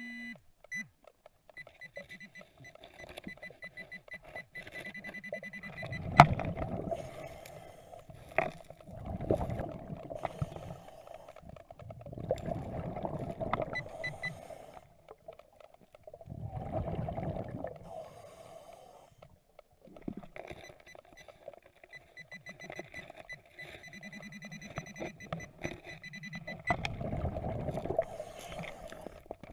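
A handheld pinpointer metal detector, heard underwater, giving a fast-pulsing high beep while it is swept over the gravel riverbed; the beep sounds for the first few seconds and again near the end. In between come bursts of rushing bubble noise every few seconds, and a couple of sharp knocks, the loudest about six seconds in.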